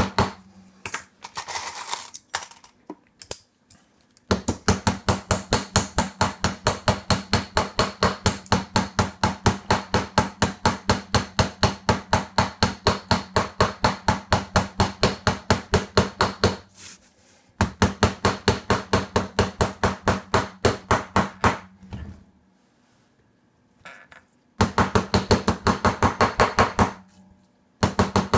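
A hammer rapidly striking a steel punch held on a metal charm over a steel bench block, about three to four sharp metallic blows a second, in three runs with short pauses between.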